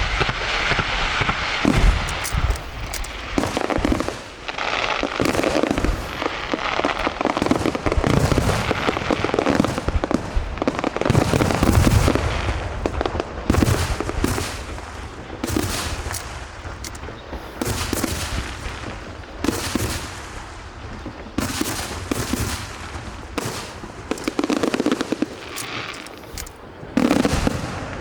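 Aerial fireworks shells bursting one after another in quick succession, deep booms mixed with dense crackling and popping.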